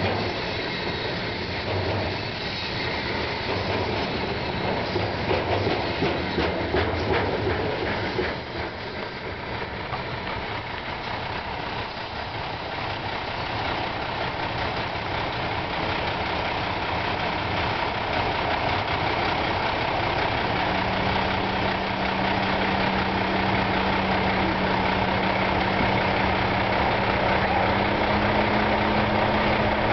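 A double-stack container freight train rolling past, its wheels clattering and clicking over the rails until the last cars clear about eight or nine seconds in. After that a steady engine drone carries on, its low pitch stepping up twice in the second half.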